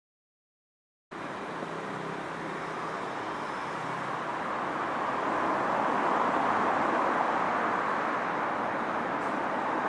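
Steady city traffic noise. It starts suddenly about a second in and slowly grows louder.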